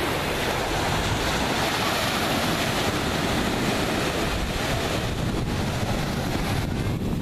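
Small ocean waves breaking and washing up a sandy shore, a steady loud rush of surf, with wind buffeting the microphone.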